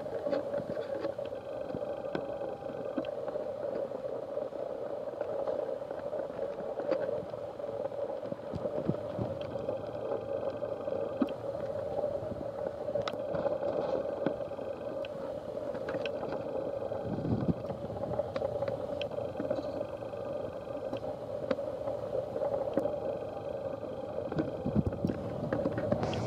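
Steady engine and road drone heard inside a moving double-decker bus cruising on an expressway, with a few faint clicks scattered through it.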